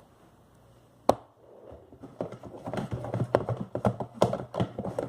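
Homemade glue slime being stirred in a pot: quick, irregular sticky clicks and pops that grow busier after about two and a half seconds. There is a single sharp click about a second in.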